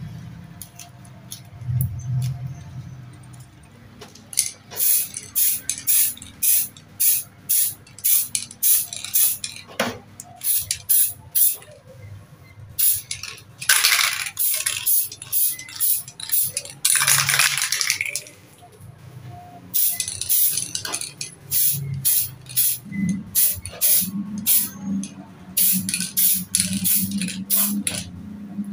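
Aerosol can of Pylox spray paint being shaken, its mixing ball rattling in quick even strokes about twice a second. Twice, about halfway through, the strokes give way to a longer hiss of paint spraying.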